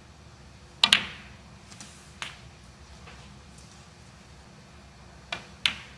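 Snooker balls clicking on the table: a sharp double click of cue tip and ball contacts about a second in, a fainter click a little after two seconds, and another pair of clicks near the end.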